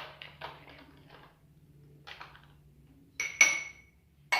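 Kitchen utensils and dishes clinking: a few soft taps, then sharp clinks with a short ringing about three seconds in and again near the end.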